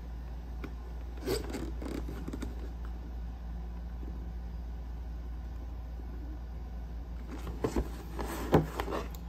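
Cardboard packaging box handled in the hands, with rubbing and scraping of the cardboard about a second in. Near the end there is a cluster of louder knocks and scrapes as the box is set down and moved on a table, over a steady low hum.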